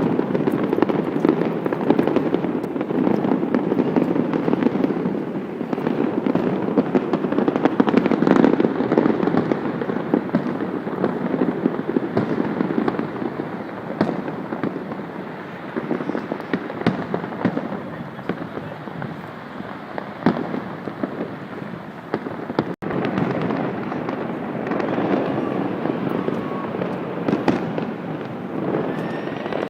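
Fireworks display: a dense, continuous run of bangs and crackles, heaviest in the first ten seconds, with a brief drop-out a little after twenty seconds.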